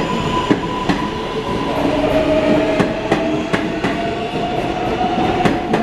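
R143 subway train pulling out of the station, its electric traction motors whining with a pitch that rises slightly as it gathers speed. The wheels click over the rail joints.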